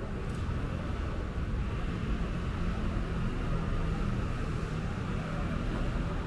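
Steady city street ambience: a low, even rumble of traffic with no distinct events.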